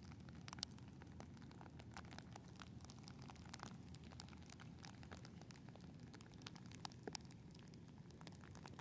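Near silence: a low steady rumble with faint, irregular ticks and patter of wet snow falling around the microphone.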